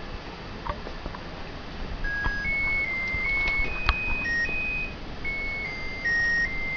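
Kerosene fan heater's electronic chime playing a short melody of stepped beeping tones, starting about two seconds in, with a sharp tap near the middle. It is the alert that leads into the heater's spoken prompt to press the extension button, the warning that its run timer is about to shut it off.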